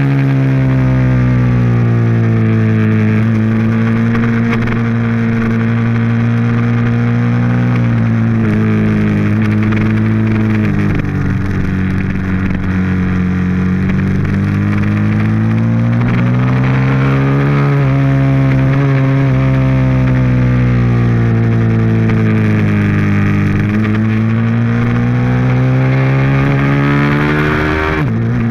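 Ducati 1098S's V-twin engine under hard track riding, its note climbing and falling over several seconds at a time with the throttle, and dropping suddenly near the end.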